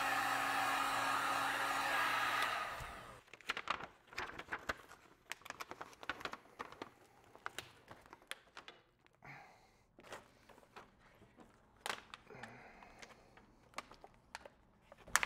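Electric heat gun blowing steadily with a low hum, switched off about two and a half seconds in. After that come irregular crinkles and sharp clicks of PVC heat-shrink wrap being handled and pressed around a battery pack.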